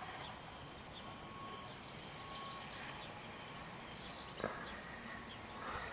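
Faint outdoor ambience: a low, even background hiss with faint bird chirps, and a single light click about four and a half seconds in.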